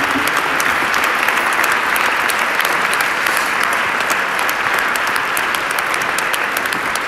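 Audience applauding steadily, a dense patter of many hands clapping that begins to ease off near the end.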